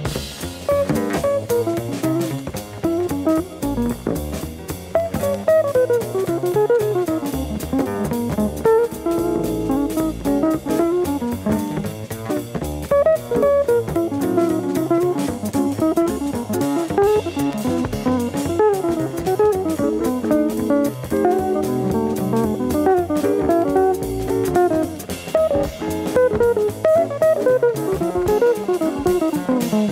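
Small-group jazz played from a vinyl record on a turntable: a guitar plays running melodic lines over bass and drums.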